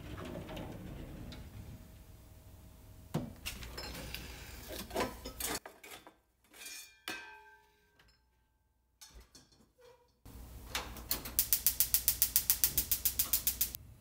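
Ceramic plates clinking and knocking as they are handled at a dish cupboard. After a short lull, a gas hob's electric igniter clicks rapidly and evenly, about eight clicks a second for a couple of seconds, near the end; this is the loudest sound.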